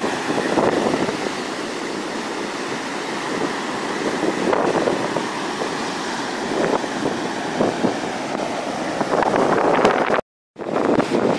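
Surf washing up a sandy beach, with wind buffeting the microphone in gusts. The sound cuts out completely for a split second near the end.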